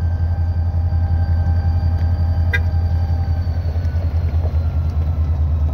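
EMD SD40-2 locomotive's 16-cylinder turbocharged 645E3 diesel prime mover running hard during a load test: a loud, steady low rumble, with a faint high whine slowly falling in pitch.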